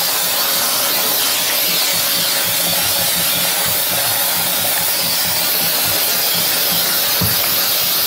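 Bissell PowerFresh Slim steam cleaner (BA-BS2233S) jetting steam through its scraper nozzle: a loud, steady hiss with a low, uneven rumble underneath.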